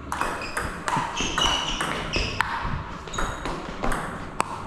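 Table tennis rally: the plastic ball clicks off the rubber-covered bats and bounces on the table in quick alternation, about two to three sharp hits a second, each with a short ringing ping.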